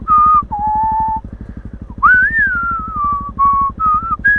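A slow tune whistled in long, gliding notes, ending on one long high note, over a motorcycle engine running slowly with a rapid, even thumping.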